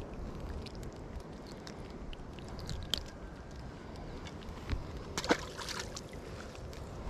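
Small clicks and handling noise as a bluegill is unhooked, then a splash about five seconds in as the fish drops back into the pond, over a steady low rumble.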